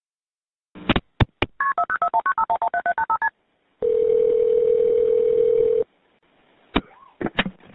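Phone-line audio: a few clicks, then a quick run of about a dozen touch-tone keypad beeps as a number is dialled. After that comes a single steady ringing tone of about two seconds, then a few more clicks as the call goes through.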